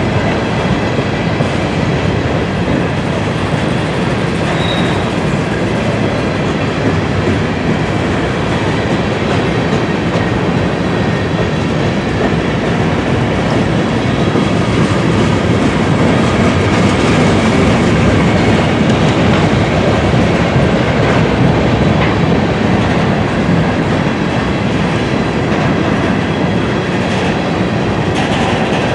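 Freight train cars of a grain train rolling past at steady speed: continuous wheel-on-rail noise with faint thin ringing tones from the wheels.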